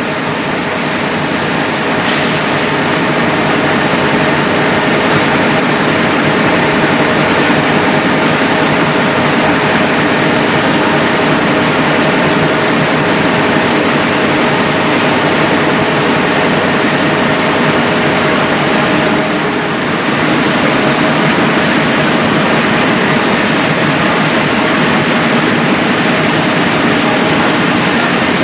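Web offset rotary printing presses running: a loud, steady mechanical din with a few steady hum tones, dipping briefly about twenty seconds in.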